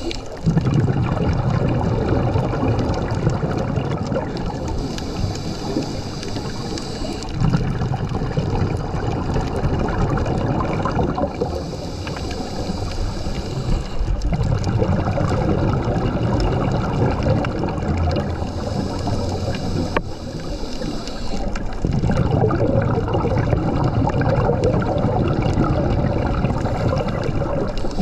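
Scuba diver breathing through a regulator underwater: a short hiss on each inhale, then a long rumble of exhaled bubbles, repeating as a slow breathing cycle a few times.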